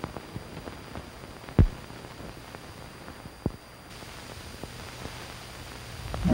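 Surface noise of an old 1953 television recording's soundtrack: steady hiss with scattered clicks and pops, the loudest about a second and a half in, over a faint steady high whine.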